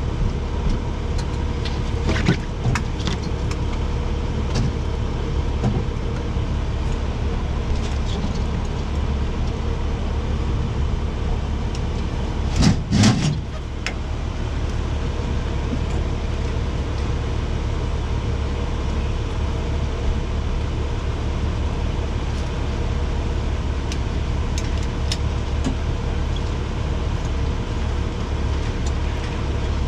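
Fire engine's diesel engine idling steadily, with scattered clicks and knocks of gear being handled and a louder clatter of knocks about 13 seconds in.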